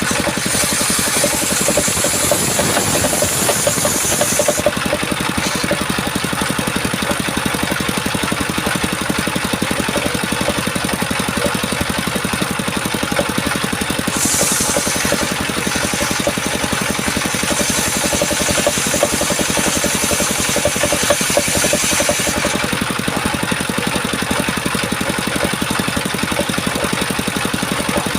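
Engine-driven sawmill circular saw running steadily. A high hiss comes in twice, for the first few seconds and again for about eight seconds from halfway through, as the blade cuts through wood.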